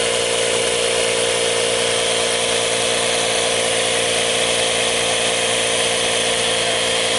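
Chevy Volt tyre repair kit's small electric air compressor running steadily, pumping air into a flat tyre.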